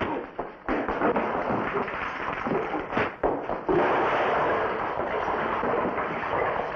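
Fistfight sound effects from a bar-room brawl: punches and wooden chairs crashing and breaking over steady scuffling. Several sharp impacts stand out, the sharpest about three seconds in.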